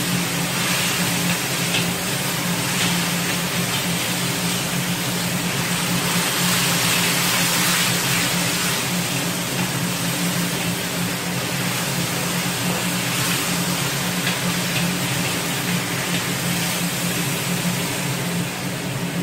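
Sliced king oyster mushrooms and vegetables sizzling as they are stir-fried in a wok, a steady hiss over a low hum, with a few faint clicks of the wooden spatula.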